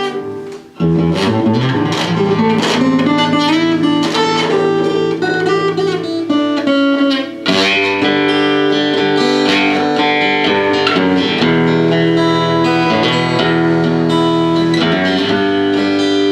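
Guitar strumming and letting chords ring, with short breaks about a second in and around seven and a half seconds in: a sound check of the guitar's tone after more treble was asked for, before the song starts.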